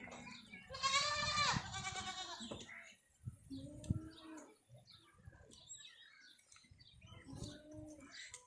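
Goats bleating: one loud, wavering bleat about a second in, then two shorter, lower calls, one near the middle and one near the end.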